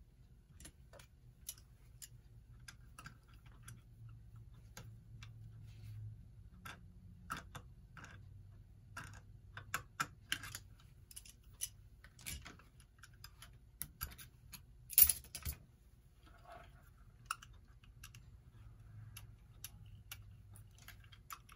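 Irregular small clicks and taps of clock parts being handled and fitted during reassembly, with one sharper, louder click about fifteen seconds in.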